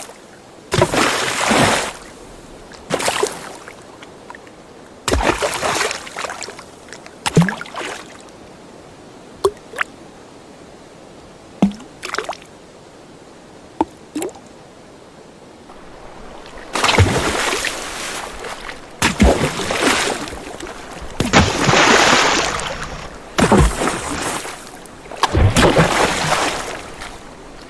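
Water sloshing and splashing from swimming strokes, in irregular swishes a second or two long. A calmer stretch in the middle holds only a few drips and plops, and the splashing grows busier again toward the end.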